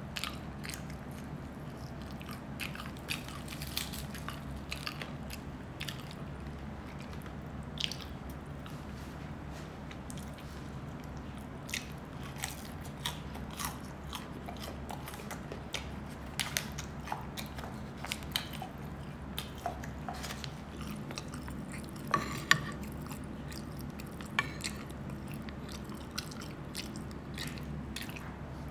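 A person chewing and biting food close to the microphone: irregular small wet clicks and crunches, with a steady low hum underneath.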